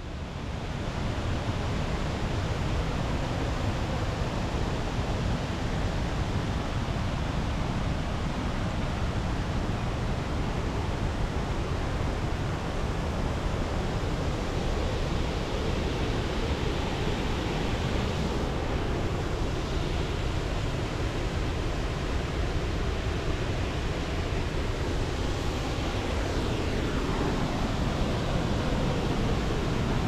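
Waterfall: a steady rush of falling water that fades in over the first second.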